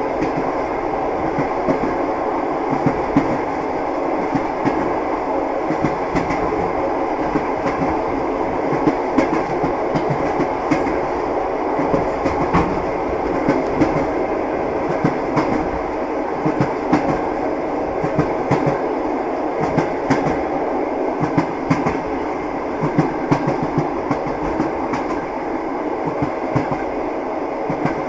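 Train running steadily, its wheels clacking over the rail joints over a constant rumble.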